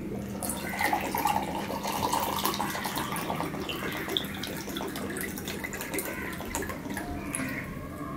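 Orange drink pouring from a plastic bottle into a drinking glass: a splashing pour with many small trickling clicks that fades out near the end.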